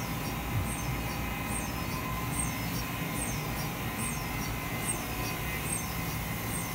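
Production-line machinery running steadily, with a constant hum and a high chirp or squeak that repeats evenly a little faster than once a second.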